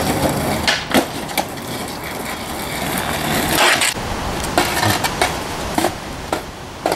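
Skateboard on brick paving: sharp knocks of the board hitting the ground about a second in, and a louder clatter and scrape of the board a little past halfway, with further light knocks near the end.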